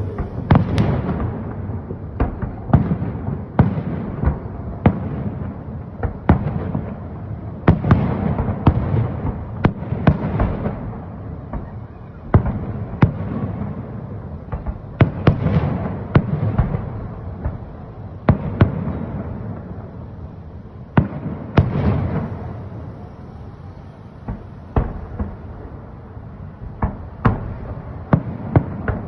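Aerial firework shells bursting in a long irregular volley: sharp bangs about once a second, some close together, each followed by a low rolling echo.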